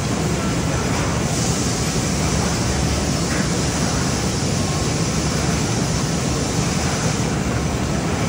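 A mixing machine running steadily while its blade turns through wet clay mould mixture: an even mechanical rumble with a hiss over it and no separate knocks.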